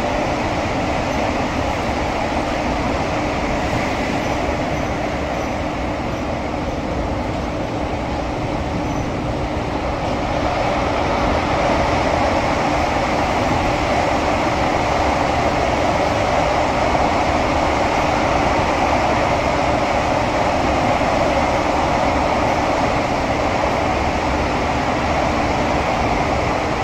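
SMRT CT251 metro train running, heard from inside the car: a steady rumble of wheels on rail and running gear with a faint steady hum, growing a little louder about ten seconds in.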